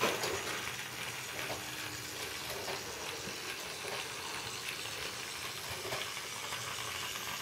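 Battery-powered Tomy Plarail toy locomotive (Oigawa C11 Thomas) running around plastic track: the steady, even noise of its small motor, gears and wheels on the plastic rails. It runs smoothly, not lurching forward as the owner's two earlier, defective units did.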